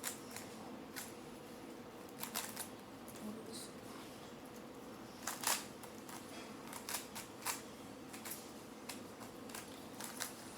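Rubik's Cube being turned by hand during a solve: irregular quick plastic clicks and clacks as the layers are twisted, several a second, with a louder flurry about halfway through.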